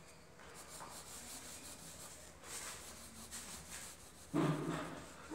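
Graphite pencil scratching and rubbing across paper in quick back-and-forth hatching strokes, laying in a dark shaded background. Near the end a brief low vocal sound cuts in over it.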